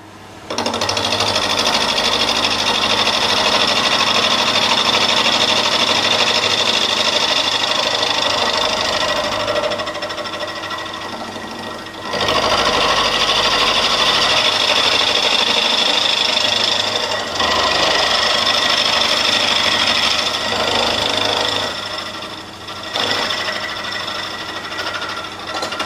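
End mill in a milling machine cutting a cast iron part clamped in a vise: a loud, fast, steady buzzing cut that eases off and picks up again a few times as the cutter goes in and out of the metal. It is cutting cleanly without bad chatter, which the machinist calls 'doesn't sound too bad'.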